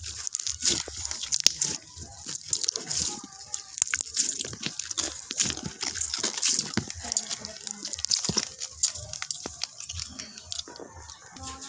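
Slime being squished and stretched by hand, making a steady run of small wet clicks, pops and crackles.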